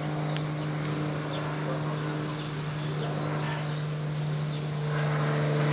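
Small birds chirping, one short high chirp repeating about once a second, over a steady low drone that grows slightly louder near the end: a distant propeller aircraft approaching.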